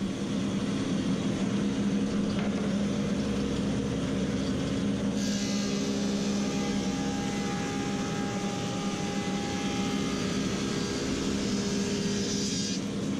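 Woodmaster 725 planer running steadily. From about five seconds in until near the end, a staghorn sumac slab feeds through the cutterhead, adding a brighter cutting noise over the motor hum.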